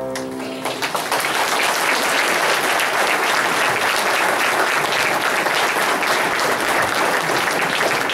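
Audience applauding with steady, dense clapping, which takes over as the last held chord of the song fades away just after the start.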